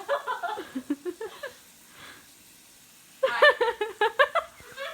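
A young woman's high voice in two short spells of untranscribed talk or laughter; the second spell, about three seconds in, is louder.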